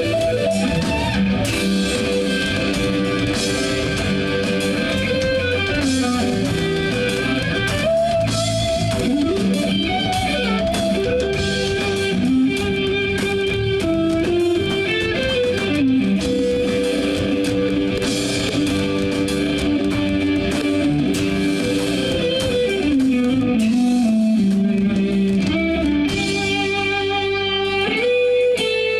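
A live band plays an instrumental piece, led by an electric guitar melody with many gliding bends and slides over a steady bass and chords.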